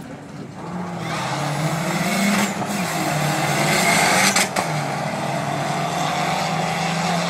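Two drag cars, one a Dodge Neon SRT-4 with its turbocharged four-cylinder, launching from the start line about a second in and accelerating hard down the strip. The engine notes climb and drop back at gear changes, twice, then hold on as the cars pull away.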